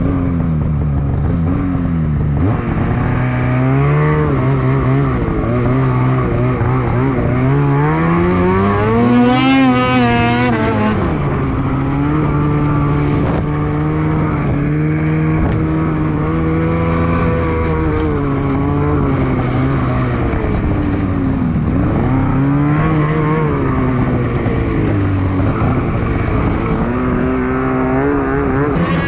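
2021 Polaris Switchback Assault 850's two-stroke twin snowmobile engine running hard under changing throttle, its pitch rising and falling again and again, climbing highest about ten seconds in.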